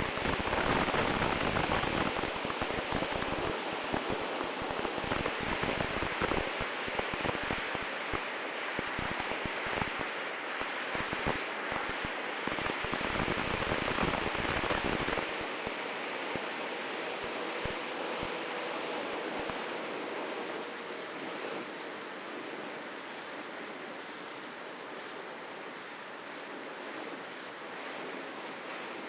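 Wind rushing over a microphone, a steady hiss with gusty low buffeting for about the first half, then smoother and a little quieter. This is typical of airflow over the onboard camera of an FPV wing in flight.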